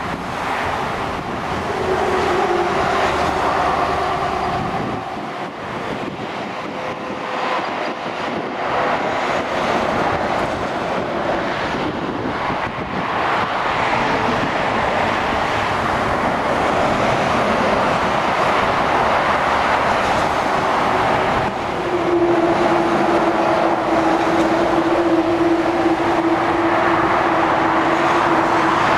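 Dual-carriageway traffic passing close by: heavy lorries and cars making a steady rush of tyre and engine noise. A steady drone joins about three-quarters of the way through as a lorry comes near.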